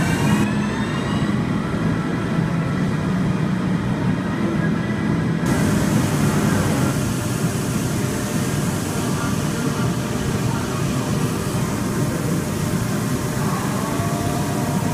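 Doosan Puma 700LM CNC lathe turning a large steel workpiece under high-pressure coolant spray: steady machine running noise with a low hum. Near the end a whine shifts in pitch.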